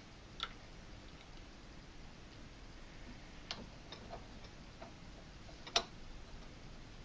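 A few sparse light clicks and taps of small metal parts being handled at a bench vise, as a screw and a pin are lined up to be pressed out. The sharpest click comes near the end.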